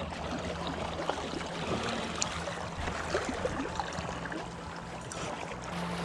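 Creek current flowing steadily, with a few faint ticks scattered through it.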